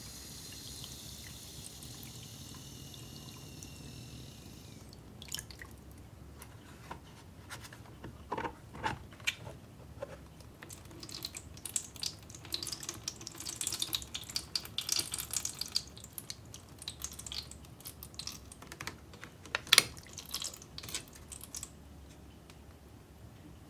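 Water poured from a jug into a plastic ice-bottle mold, a steady splashing stream that stops about five seconds in. Then come scattered clicks and taps of wet plastic as the mold's halves are fitted and pressed together, with one sharp click near the end the loudest.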